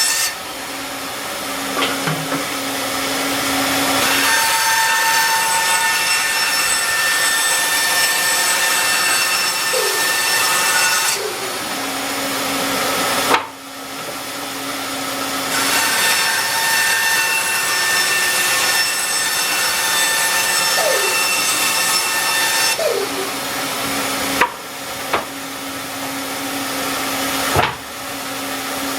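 A workshop power tool running steadily while it cuts, with a motor hum that comes and goes as it is loaded; the noise drops briefly three times, about every 14 seconds, between passes.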